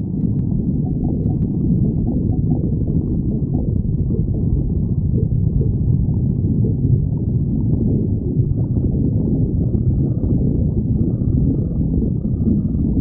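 Stomach growling: continuous low gurgling and rumbling.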